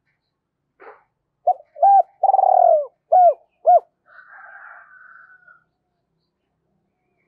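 Spotted dove cooing its song: a run of short, arched coos around one longer, falling coo, the phrase lasting about two seconds. A fainter scratchy sound follows, and then it goes quiet.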